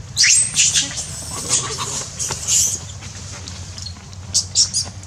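Macaque squealing: a quick run of short, sharp, high-pitched squeaks and cries over the first three seconds, then another brief cluster near the end.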